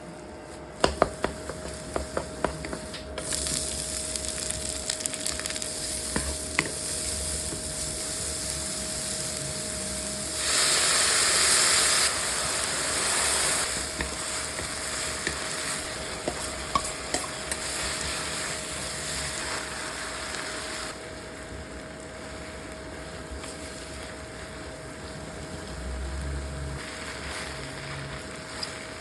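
Ingredients for a glass-noodle stir-fry sizzling in hot oil in a pan while being stirred and tossed, with sharp clicks of a utensil against the pan at the start. The sizzle swells loudest about ten seconds in, as if fresh ingredients or sauce hit the oil, then settles and fades down after about twenty seconds, over a faint steady hum.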